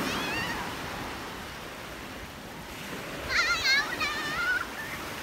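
Surf washing in on a sandy beach, with children's high-pitched wavering shrieks, a short one at the start and a longer burst about three seconds in.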